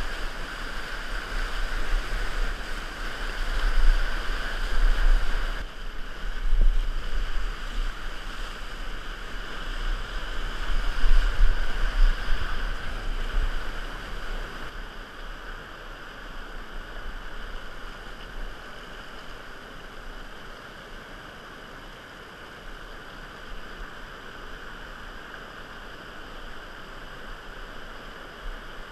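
Whitewater rapids rushing around a kayak, with heavy low thumps of water and wind buffeting the microphone over the first half. After about fourteen seconds the rush turns quieter and steadier.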